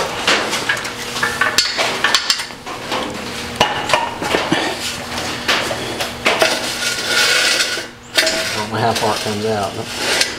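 Steel clanking and rattling, many separate knocks, as the boom of an engine crane is slid out and its hooks and chain are handled.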